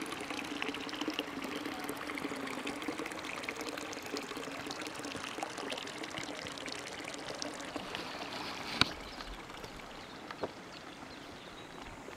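Water flowing and trickling steadily, like a small stream. A sharp click comes about nine seconds in, after which the flow is a little quieter.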